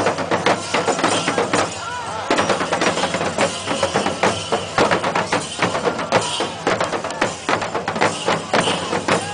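Fast, dense ritual percussion: rapid drum strokes with metallic jingling over them, the accompaniment of a Thira dance.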